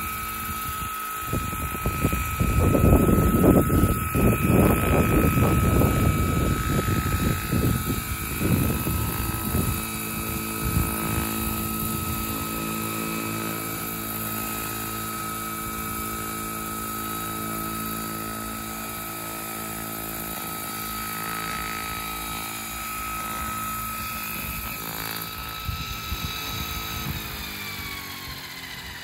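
Vario Chinook tandem-rotor model helicopter running: a steady high whine with a rush of rotor noise that swells over the first ten seconds or so, then settles. Near the end the whine drops in pitch as the rotors slow.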